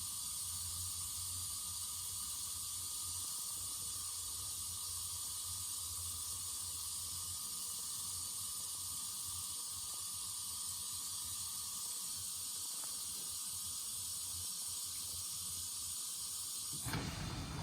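GE GDT665SMNES dishwasher running: a steady hiss of water spray over a low hum, which the owner finds extremely loud for a unit rated at 46 dB. A sudden fuller, louder noise cuts in near the end.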